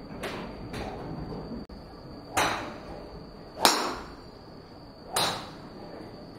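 Golf drivers striking balls: three sharp cracks about a second and a half apart, each with a short ringing tail, the middle one loudest. Two fainter clicks of strikes come in the first second.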